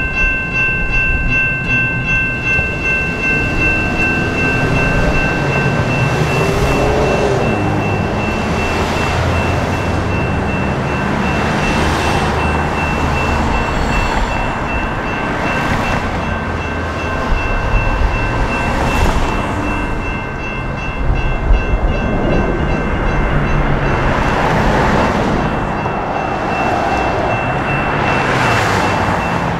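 Electronic railroad crossing bells ringing rapidly and continuously, with one of the bells stopping about six seconds in while the other keeps ringing. Cars swish past several times over a low traffic rumble.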